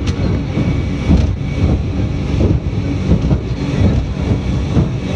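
Speedboat under way at speed: engine noise under heavy wind buffeting the microphone.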